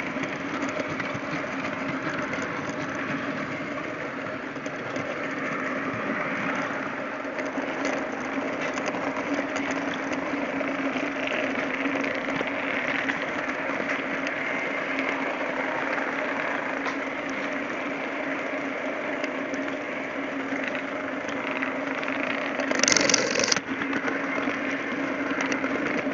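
TT-scale model train running, heard from a camera riding on one of its wagons: a steady motor-like hum with the rattle of wheels on the track. A brief, louder burst of noise comes near the end.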